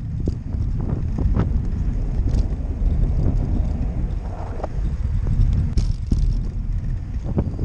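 Wind buffeting the microphone of a bicycle-mounted camera while riding, with the tyres rolling over cracked asphalt. A few short knocks and rattles from the bike over the rough pavement.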